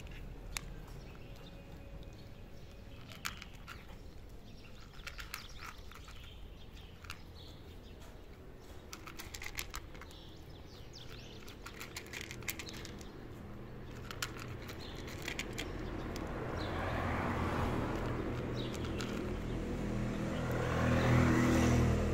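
A cat crunching dry kibble, with scattered crisp clicks. From about two-thirds in, the engine noise of a passing motor vehicle rises, swells twice and is loudest near the end.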